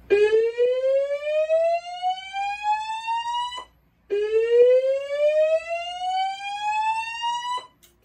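Notifier DVC voice-evacuation system sounding its slow-whoop fire alert tone through a speaker. It plays two rising sweeps, each climbing steadily for about three and a half seconds and cutting off, with a short gap between them. This is the evacuation signal that goes between repeats of the fire voice message.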